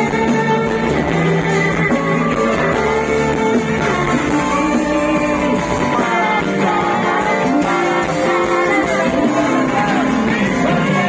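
Live band playing a pop song, led by guitars, with some singing in places.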